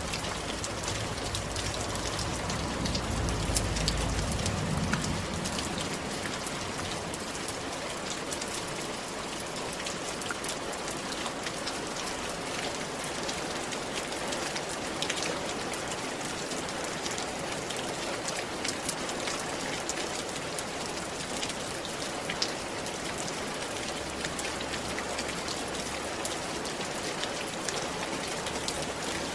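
Steady rain falling on a roof: an even hiss with many sharp ticks of individual drops. A low rumble swells briefly a few seconds in.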